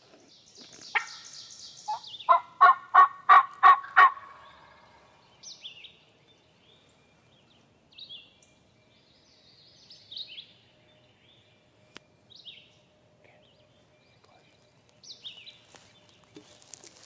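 Turkey yelping: a raspy high call, then a loud run of about six evenly spaced yelps between about two and four seconds in. Small songbirds chirp with short, scattered, high downward notes after it.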